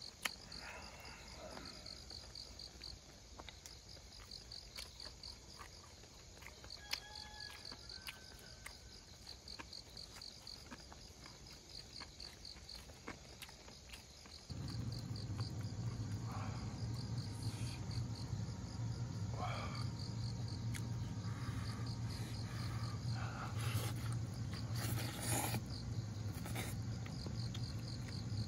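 Crickets chirping steadily in an even, rapid rhythm of high pulses. About halfway through, a steady low hum comes in abruptly under the chirping, with a few scattered clicks and knocks.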